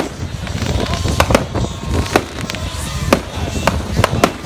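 Show pyrotechnics going off: a string of sharp firework bangs at irregular spacing, sometimes two or three within a second, over a low rumble.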